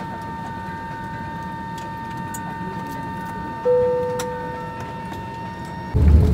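Steady hum of an airliner cabin with a thin high whine from the aircraft's systems. Partway through, a single chime tone rings and fades. Near the end, a much louder low rumble sets in.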